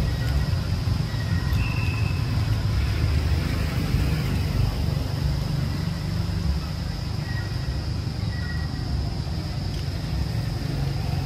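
Steady low outdoor rumble with a constant high hiss over it and a few faint, short high-pitched tones.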